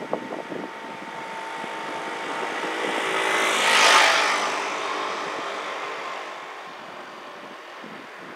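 Aircraft passing overhead: a steady engine drone with several held tones swells to its loudest about four seconds in, then slowly fades.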